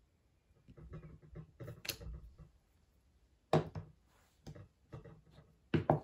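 Clear acrylic stamp block being pressed onto card on a tabletop: soft rubbing and small clicks, then a sharp knock about three and a half seconds in as the block is lifted and set down, followed by a few lighter taps.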